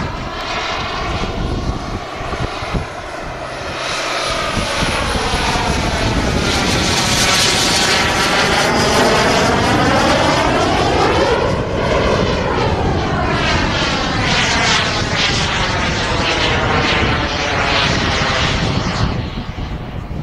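Jet turbine of a radio-controlled Dassault Mirage 2000 model flying past, a continuous jet rush and whine. It swells, passes closest about twelve seconds in with a sweeping, phasing change in tone, then falls away near the end.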